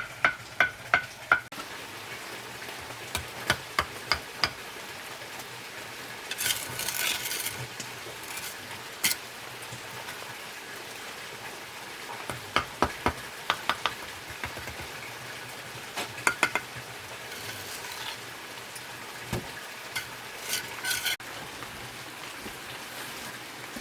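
Groups of quick, sharp taps with a ringing, metallic tone, several a second, over a steady hiss.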